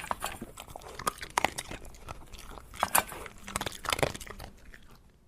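A dog crunching dry kibble from its bowl: irregular bites and chews, fading out near the end.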